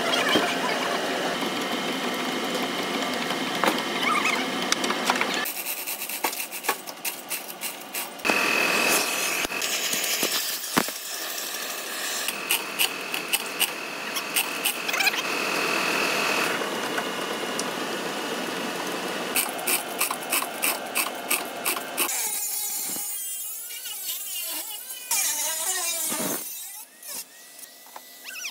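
Body-shop noise from metalwork on a crashed car's rear body panels: several runs of rapid clicking or rattling, with a high steady whine twice in the middle.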